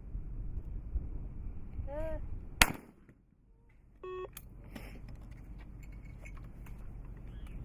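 A shooter's short shouted call, then about half a second later a single trap shotgun shot, the loudest sound, with low wind rumble on the microphone. About a second and a half after the shot a short electronic beep sounds, followed by a few faint clicks.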